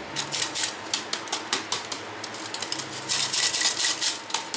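Hand-operated stainless steel flour sifter clicking rapidly and evenly as its mechanism is worked, sifting flour and baking powder. The clicking grows louder from about three seconds in.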